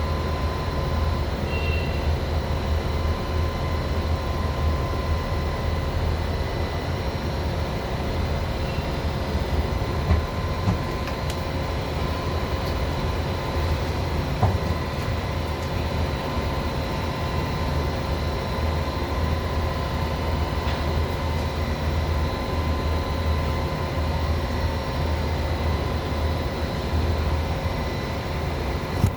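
FH680 machining center running steadily: a low hum with a steady whine made of several even tones, the spindle noise that the owner suspects comes from a worn bearing. A few faint clicks come through about ten and fourteen seconds in.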